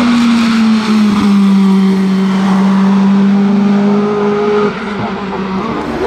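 Renault Laguna BTCC race car's naturally aspirated 2-litre four-cylinder engine held at high revs as the car drives past. The engine note falls slightly in pitch in the first second, holds steady, then gets quieter near the end.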